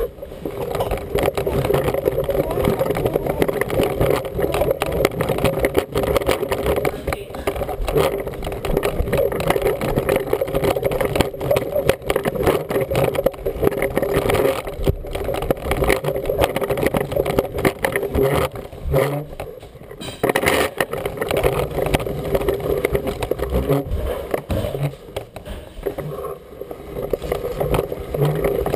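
A toddler's push-along walker toy rolling across the floor: a continuous rattling rumble of its wheels and body, with a steady hum and many small clicks, easing off briefly about two-thirds of the way through.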